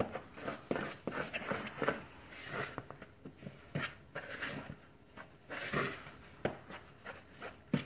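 A fork stirring stiff dumpling dough in a bowl: irregular clicks and scrapes of the fork against the bowl, a few strokes a second. The flour, shortening and ice-water dough is starting to cling together and is getting harder to stir.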